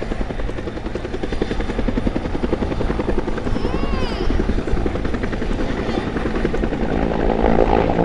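Helicopter rotor beat, a rapid steady pulsing throughout, swelling louder near the end. About four seconds in a short chirp cuts across it, interference from the airfield's rotating radar picked up by the camera's microphone.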